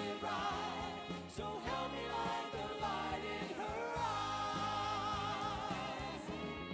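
Oldies show band performing a 1950s–60s style song: a singer with vibrato over band backing, holding a long note from about four seconds in.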